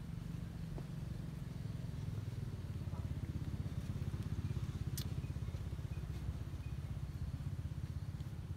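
Steady, deep rumble of an engine running off-camera, pulsing rapidly, with one sharp click about five seconds in.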